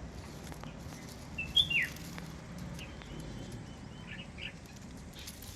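A bulbul calls once, a short, high note that falls sharply about one and a half seconds in. A few fainter chirps follow later.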